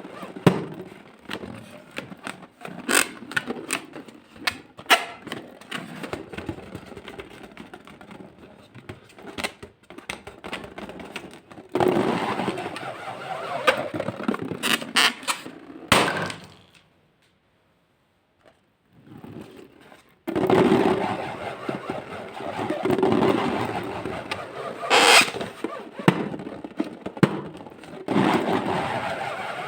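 Slime being squished and mixed, with dense crackling and many sharp sticky clicks and pops. The sound drops out for about three seconds past the middle, then the crackling comes back louder.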